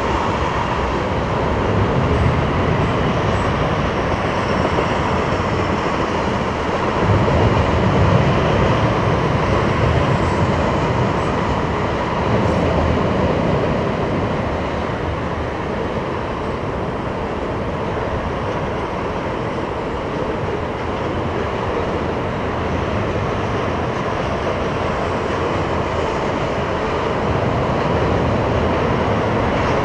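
Freight train tank cars rolling steadily across a steel truss bridge, a continuous noise of wheels on rail.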